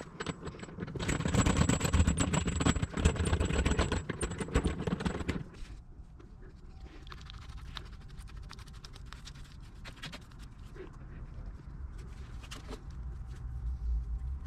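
Hands at work on hardware, with a loud stretch of dense clicking and scraping for the first few seconds, then quieter brush strokes spreading Flex Seal, with scattered light clicks.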